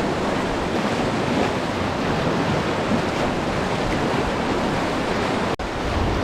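Whitewater rushing around a raft in a rapid, a steady roar of water with wind buffeting the microphone; the sound drops out for an instant about five and a half seconds in.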